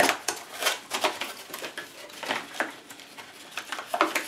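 Packaging being opened by hand: a run of short, irregular scratchy handling noises, some closer together, with a pause in the middle.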